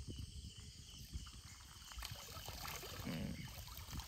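Cast net being hauled up through canal water, the water sloshing around it, then running and splashing off the mesh as it lifts clear near the end. A low, uneven rumble underlies it.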